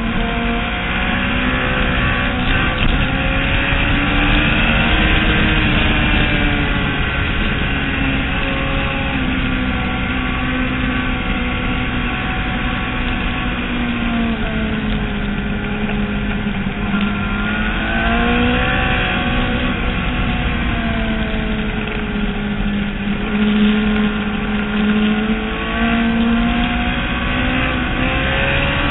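Motorcycle engine at track speed heard on board, its pitch rising and falling again and again as it accelerates, shifts and slows for corners, over a steady rush of wind noise.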